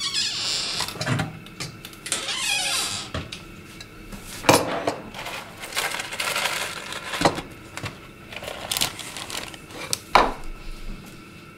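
Kitchen handling sounds of a breakfast bowl and spoon: dishes and cutlery knocking and clinking, with three sharp knocks spread through. Two short rustling stretches come in the first few seconds.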